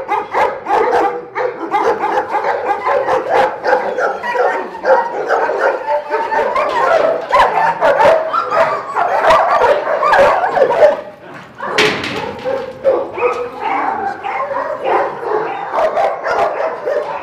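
Many shepherd dogs barking and yelping together in their kennel runs, a dense, continuous chorus. The barking drops briefly about eleven seconds in, and a single sharp knock follows.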